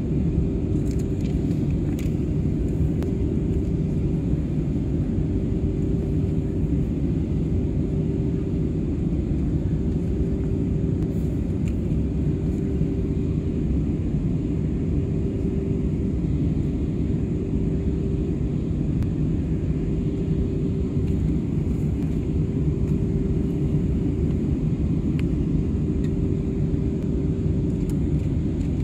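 Airbus A320neo cabin noise in flight during descent: a steady roar of engines and airflow with a constant low hum.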